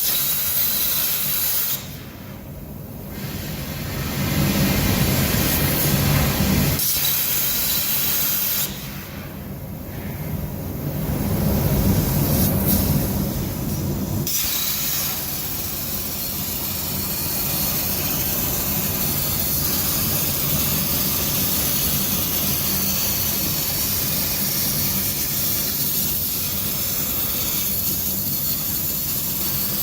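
CNC plasma cutting table at work: the plasma torch gives a loud, steady hiss. The hiss stops twice for a few seconds, while a lower machine rumble swells, then holds steadily for the second half.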